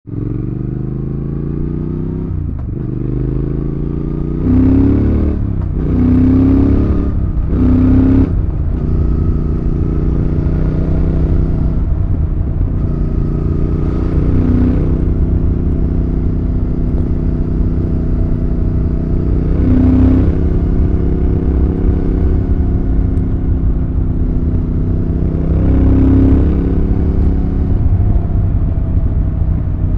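Triumph Thruxton RS parallel-twin engine and exhaust heard from the rider's seat while riding. The revs climb and drop sharply several times in quick succession as it runs up through the gears, then it holds a steadier note with a few more rev drops later on.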